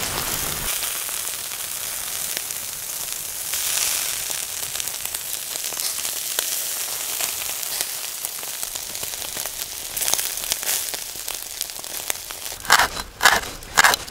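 Chicken skin sizzling on a wire grill over charcoal: a steady hiss with fine crackling pops. Near the end, a kitchen knife chops green onions on a wooden cutting board in several quick, sharp chops.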